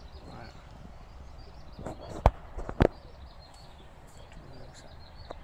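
Outdoor background with faint, distant bird chirping, broken by three sharp clicks about two to three seconds in.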